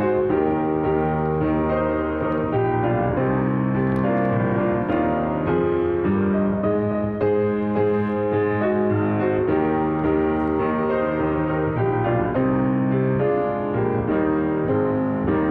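Piano playing a slow passage of sustained chords that change about once a second.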